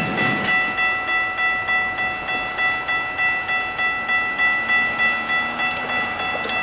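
Railroad grade crossing bell ringing steadily, about two strikes a second, while the crossing gates rise after the train has cleared. A car passes across the crossing near the end.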